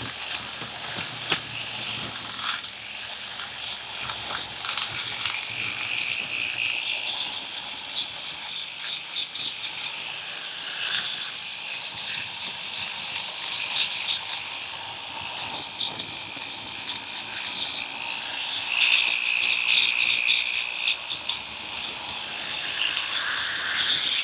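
Makita finger sander running, its narrow sanding belt buzzing and scratching against carved wood. The sound swells and dips irregularly as the belt is pressed in and lifted off while detail is sanded into the face.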